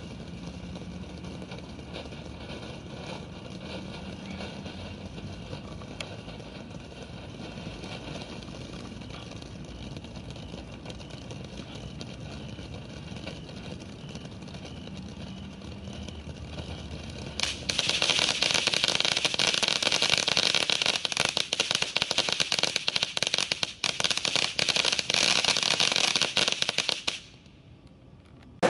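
Kimbolton '5 Star' battery of fountains burning: a steady rushing spray of sparks, then a louder dense crackling takes over about two thirds of the way in. After about ten seconds the crackling cuts off suddenly as the fountains burn out.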